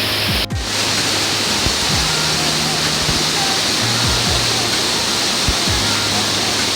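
Rushing mountain stream water, a loud, steady rush of whitewater, with a momentary break about half a second in.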